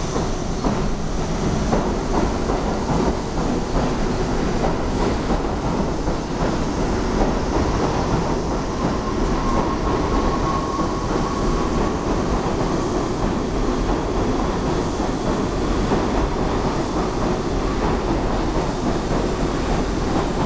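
New York City subway R62A train cars running past at close range as the train pulls out of the station, a steady loud rush of wheels on rails. A faint high whine rises out of it about nine seconds in and fades a few seconds later.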